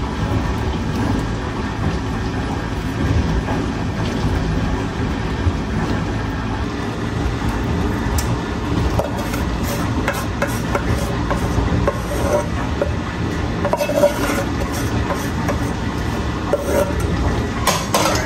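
A steady low rumble throughout. From about eight seconds in come scattered light clicks and scrapes as a basting brush and a wooden spoon work barbecue sauce over meatballs in a disposable aluminium foil pan.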